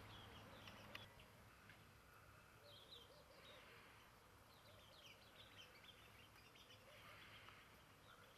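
Near silence with faint bird chirps and twitters coming in short clusters, about a second in, around three seconds and again for a couple of seconds past the middle.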